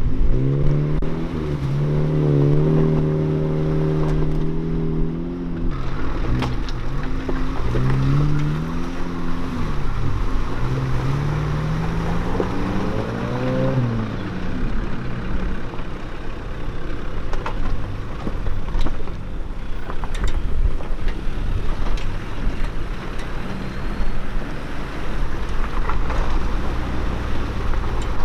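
4WD vehicle driving on a rough gravel track: the engine's pitch rises and falls through the revs for about the first half, then gives way to a steady rumble of tyres and wind with occasional knocks.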